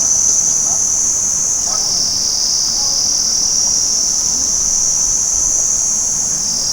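Crickets chirring in a dense, continuous high-pitched trill. The pitch dips slightly about two seconds in and rises back near the end.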